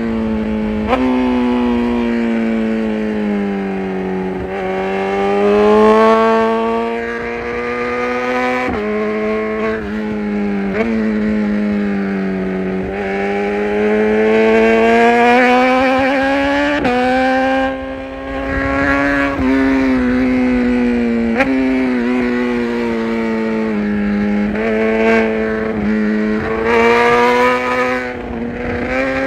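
BMW S1000RR inline-four engine pulling hard on a twisty road, its pitch climbing and falling repeatedly with several abrupt jumps as on gear changes, over wind and tyre noise.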